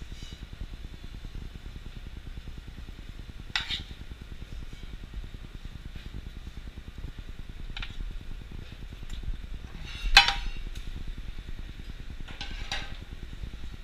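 A metal spoon and sauté pan clinking and knocking as vegetables are spooned out onto a plate: a few separate sharp clinks, the loudest about ten seconds in, over a steady low hum.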